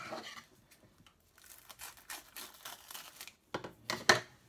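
Plastic cling film crinkling and rustling as it is stretched over a bowl, then scissors snipping through the film in a few sharp cuts near the end.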